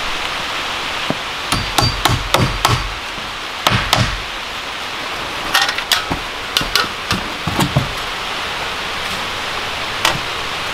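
Hand-tool work on a log building's porch footing: irregular sharp knocks and strikes. They come in quick clusters about a second in, around four seconds, from about six to eight seconds, and once more near the end, over a steady hiss.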